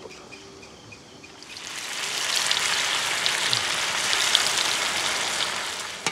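Bread rolls deep-frying in a wok of hot oil, a dense sizzle full of small crackles. It swells in about a second and a half in and fades out near the end.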